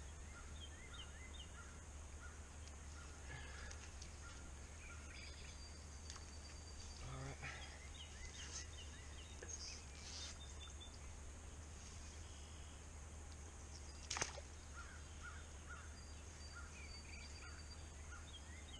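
Birds chirping now and then over a steady low rumble and a faint steady high hiss, with one sharp knock about fourteen seconds in.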